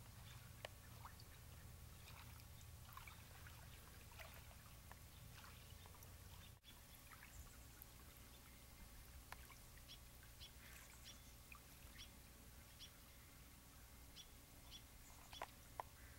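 Near silence: a faint shoreline background with small water trickling sounds and scattered soft ticks.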